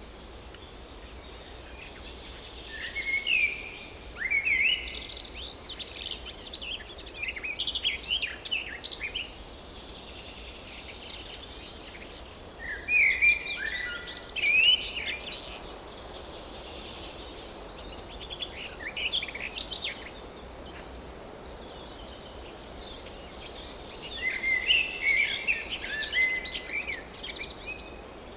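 Forest ambience: songbirds singing in three bouts of quick chirping, rising and falling phrases, a few seconds in, around the middle and near the end, over a steady background hiss.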